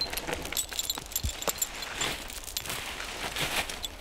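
Scattered crackles, clicks and knocks of a Belgian draft horse and its handler moving over brushwood during horse logging, with a light metallic jingle of harness in the first second and a dull thump about a second in.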